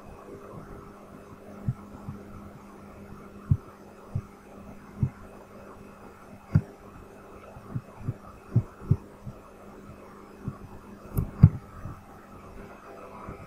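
About a dozen muffled clicks and low thumps from a computer mouse and desk, at irregular intervals, over a steady low electrical hum.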